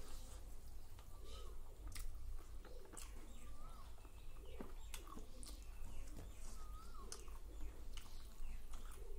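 Close-mouthed chewing and wet lip-smacking of someone eating rice and curry by hand, as irregular sharp mouth clicks. A bird chirps briefly a few times in the background.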